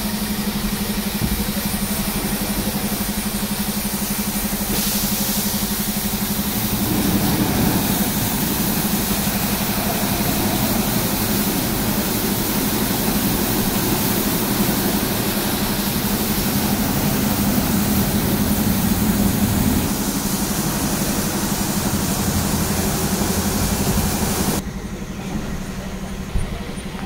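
Automatic rollover car wash gantry running: a steady motor hum under a dense hiss of spinning brushes and water spray. Near the end the hiss cuts off suddenly while the hum carries on.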